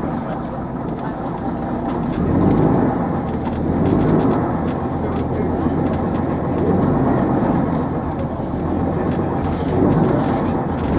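Scania bus heard from inside the saloon while under way: engine and road noise, growing louder about two seconds in and then holding steady.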